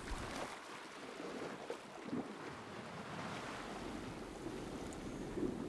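Steady, low seaside ambience of waves washing against the shore, with some wind.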